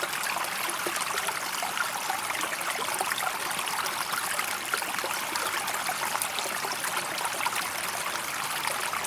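Tiled indoor water fountain: water flowing and trickling steadily, a soft, even splashing hiss.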